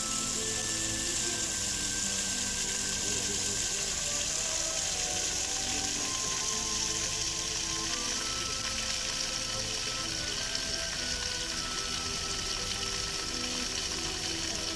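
Water jets of an animated fountain spraying and splashing down, a steady hiss, with music playing underneath.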